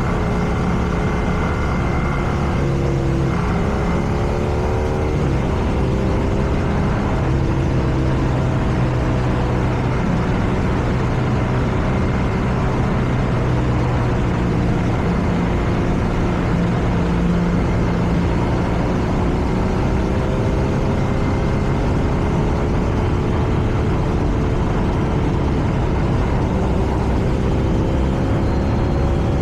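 BMW R nineT's air/oil-cooled boxer twin running under way, heavily mixed with wind and road noise. A few seconds in, its pitch dips and picks up again at a gear change, then climbs steadily near the end as the bike accelerates.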